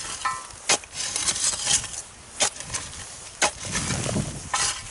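A metal-headed digging tool on a wooden handle strikes and chops into a mixture of soil and wood ash, breaking up the crust where it may be frozen. It gives several sharp knocks, the loudest roughly once a second, with scraping between them.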